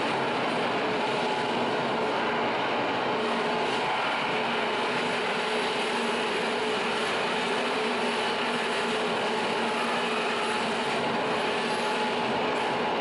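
Dense, steady wall of electronic noise from a live experimental noise performance, with a few faint held tones under it and no breaks.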